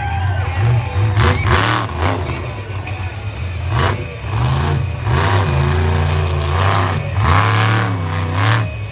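A truck's big engine revving hard, its pitch rising and falling again and again, with several short bursts of louder noise.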